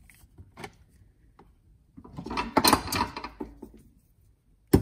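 Small metal hand tools clicking and scraping against an aluminum filter housing and its plastic cover. A few faint clicks come first, then a longer burst of scraping and rattling about halfway through, and a sharp click near the end.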